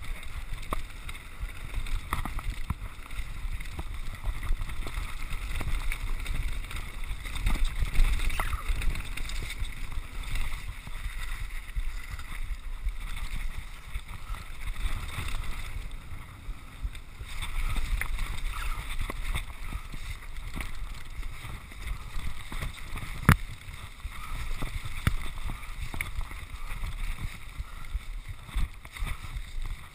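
Mountain bike rolling down rocky singletrack: tyres rumbling and crunching over stones while the bike rattles, with wind buffeting the microphone. One sharp knock about three-quarters of the way through.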